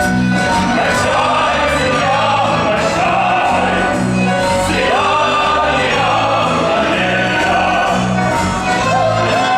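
Musical-theatre number played by an orchestra, with several voices singing together over a steady, repeating bass line.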